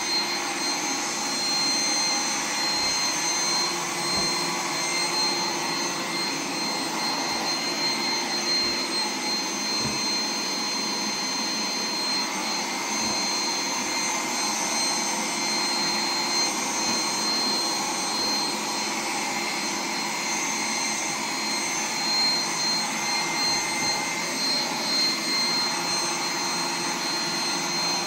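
Roomba 980 robot vacuum running: a steady whirring of its vacuum motor and brushes with a high whine, and a few faint low knocks scattered through.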